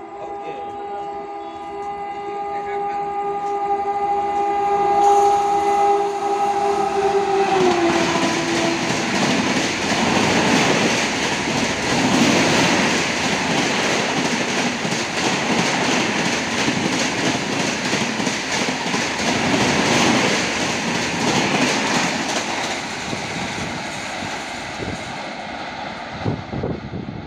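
Express passenger train, the 13258 Danapur–Anand Vihar Jansadharan Express, passing at speed: a long horn blast that drops in pitch about seven and a half seconds in as the locomotive goes by, then the loud rushing noise of the coaches running past, fading near the end.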